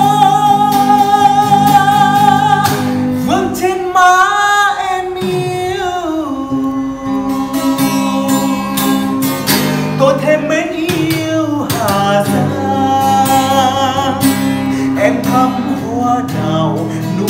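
A man singing a Vietnamese ballad to his own acoustic guitar strumming, holding long notes, some with a wavering vibrato.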